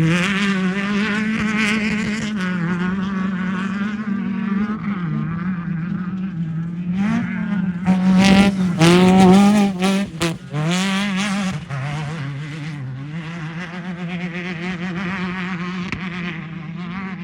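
Off-road race car engine running at high revs, its pitch rising and dipping as the throttle works. It is loudest about eight to ten seconds in, with a couple of brief lift-offs, then holds a steadier, slightly quieter note toward the end.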